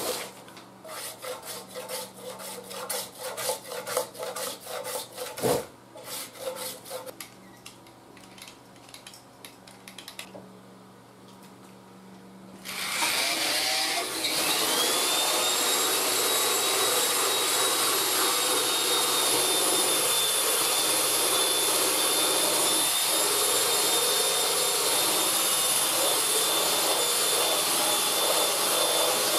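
Brisk scrubbing and rubbing strokes on a paint-covered radio cabinet, then a brief lull. About halfway through, an electric drill spins up with a rising whine and runs steadily, its wire brush wheel grinding softened paint off the cabinet during paint stripping.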